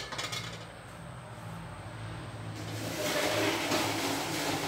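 A metal spatula clinks and scrapes in an empty steel wok. From about two and a half seconds in, a rushing hiss swells up, over a steady low hum.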